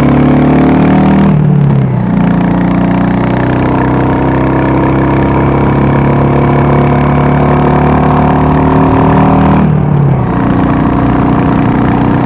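Royal Enfield 350 single-cylinder motorcycle engine running under throttle, its note climbing as it pulls. The note dips briefly twice, about a second and a half in and near the ten-second mark, as if for gear changes.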